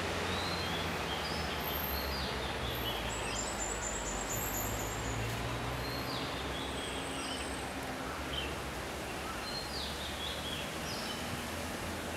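Small birds chirping now and then, short high calls over a steady background hiss and low rumble, with a quick run of very high chirps about three seconds in.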